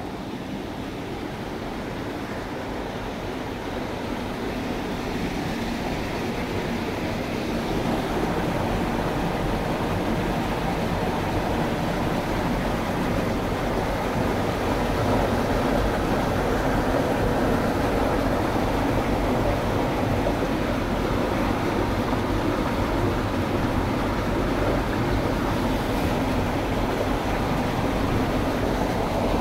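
Fast-flowing, swollen river water rushing past a rocky bank: a steady wash of moving water that grows louder over the first several seconds, then holds.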